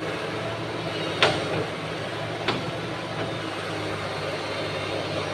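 Excavator's diesel engine running steadily, with two sharp knocks about a second into the sound and again a second later.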